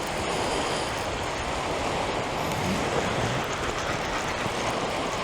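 Steady rushing wash of sea surf at the shoreline, with no breaks or distinct strikes.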